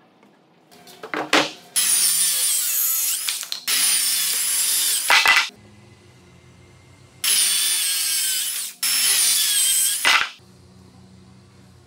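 Handheld circular saw cutting through a Korean mahogany slab along a clamped guide, in four runs of a couple of seconds each with short pauses between, its motor whine rising and dipping under load. A few sharp clicks come about a second in, before the first cut.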